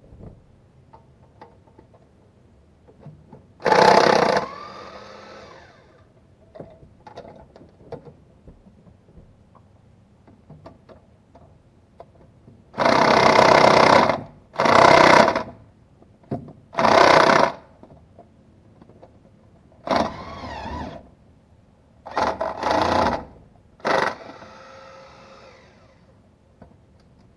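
Cordless impact wrench hammering in about seven short bursts, each half a second to a second and a half long, undoing bolts on the idler pulley and timing cover. Twice the motor spins on freely and winds down after a burst, as a bolt breaks loose.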